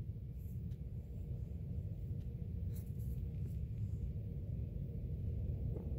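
Low, steady rumble of wind buffeting the microphone, with a few faint ticks.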